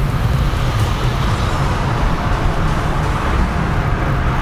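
Steady wind rumble buffeting the microphone, a constant low roar with no distinct events.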